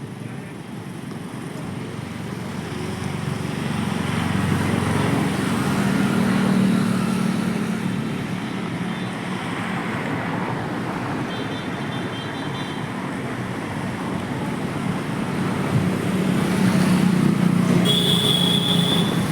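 Road traffic going past: vehicle engine and tyre noise that swells about six seconds in and again near the end, with brief high-pitched tones over it.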